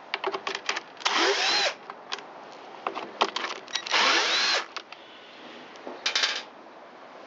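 Power drill running in three short trigger pulls, backing out the screws that hold the blower's handle: the motor whine rises and falls with each pull, about a second in, about four seconds in, and briefly near six seconds. Light clicks and knocks of handling come between the pulls.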